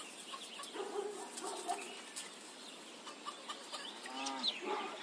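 Hens clucking in short calls, about a second in and again near four seconds in, over the steady wash of a soft brook, with small birds chirping.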